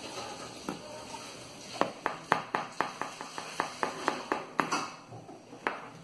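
Metal spoon tapping and scraping on a soaked sponge cake in a metal baking tray while spreading a milk soak. A run of quick light taps, about three to four a second, starts about two seconds in and stops shortly before the end.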